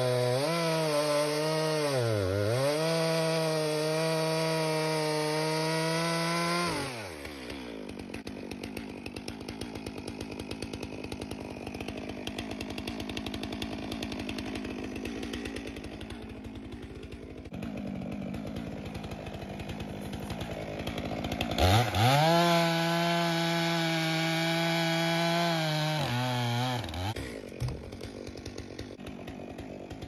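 Stihl two-stroke chainsaw running at full throttle, bogging briefly as it cuts through incense cedar logs. It drops to idle about seven seconds in, revs up to full speed again for about five seconds past the twenty-second mark, then settles back to idle.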